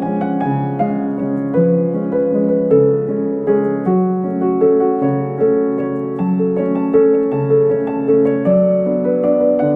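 Background piano music: a gentle, slow melody of sustained notes.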